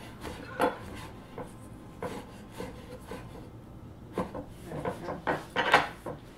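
A kitchen knife knocking and scraping on a wooden cutting board in irregular strokes, with a quicker run of louder strokes near the end.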